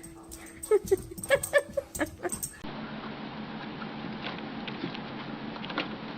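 A dog scrabbling and tapping about, with a few short whimpers in the first couple of seconds, then an abrupt cut to a steady background hiss and hum with light ticking.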